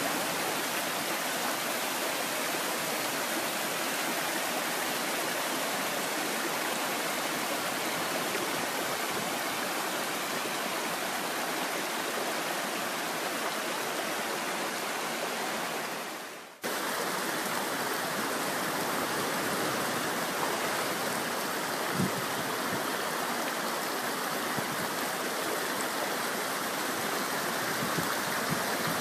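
Steady rush of water among rocks, from surf washing between boulders and a shallow creek running over stones. The rush fades and cuts off abruptly about halfway through, then starts again with a slightly different tone.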